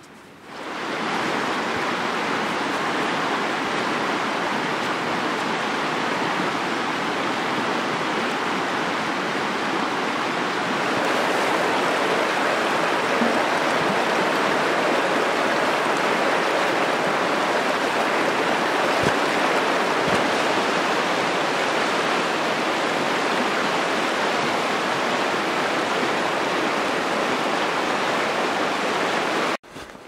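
Creek water rushing over rocks, close by: a loud, steady rushing that starts suddenly and grows a little louder about a third of the way in.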